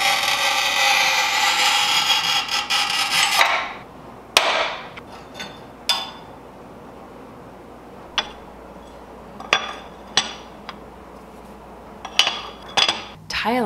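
A manual rail tile cutter's scoring wheel scrapes along a glazed ceramic subway tile in one long, ringing scrape of about three and a half seconds. About a second later the scored tile snaps with a sharp crack. After that come scattered clicks of ceramic tiles being handled and set down on the countertop.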